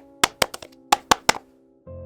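Quick, sharp tapping clicks in an uneven rhythm over soft held tones of background music, then a short lull and a fuller sustained music chord that comes in near the end.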